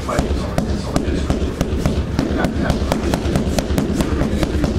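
Eskrima stick striking a freestanding padded heavy bag in a rapid, steady volley of sharp smacks, about four or five a second, over a low rumble.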